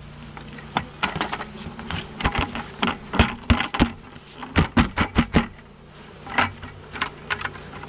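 A plastic bucket held upside down over a wooden hive box is knocked and tapped to shake a swarm of honeybees out onto the frames. It gives a quick run of sharp knocks and thuds, thickest in the middle, with a few more near the end. A steady low hum runs underneath.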